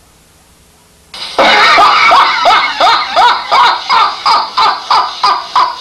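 Faint tape hiss, then about a second in a man bursts into loud laughter: a run of 'ha' pulses about three a second, each falling in pitch.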